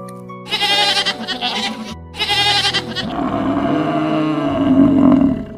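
Two short, shaky bleats followed by a longer, lower drawn-out animal call, over background music.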